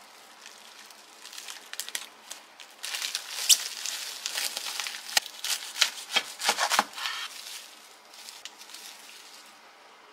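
Plastic cling wrap crinkling as it is pulled tight around a thick sandwich, then a chef's knife sawing through the wrapped sandwich in several crunchy strokes about six to seven seconds in.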